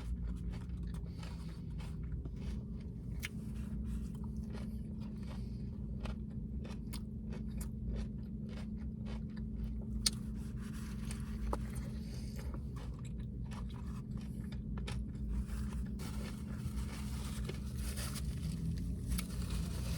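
Close-up eating sounds: a person chewing and biting into a taco, with many short wet mouth clicks and smacks. A steady low hum runs underneath.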